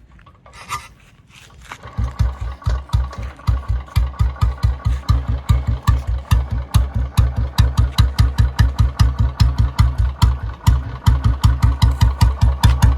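2009 Royal Enfield Bullet Electra's single-cylinder four-stroke engine catching about two seconds in, then idling with its slow, even thump (the Bullet's 'dug dug'), about four to five beats a second.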